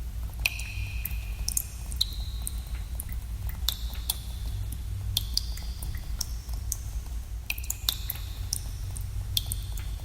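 Water drops falling in a cave, irregular plinks several a second, many ringing on briefly with an echoing tone, over a steady low rumble.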